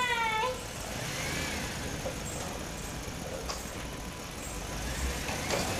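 Plastic wheels of a toy tractor rolling on a tiled floor, a low rumble, after a child's short high-pitched call at the start.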